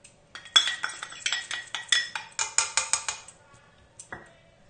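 A spoon clinking and scraping against stainless steel bowls in a quick run of ringing metallic taps as spice is spooned from one small bowl into a larger one. The taps stop about three seconds in, with one more clink near the end.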